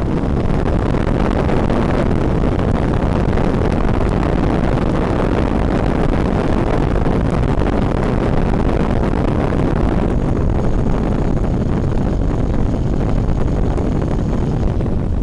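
Steady rushing airflow noise over the onboard FPV camera microphone of a FunCub RC plane in flight. A faint thin high whine joins about two-thirds of the way in and stops just before the end.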